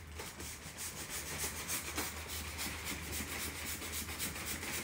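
Rhythmic rubbing or scratching in quick, even strokes over a steady low hum.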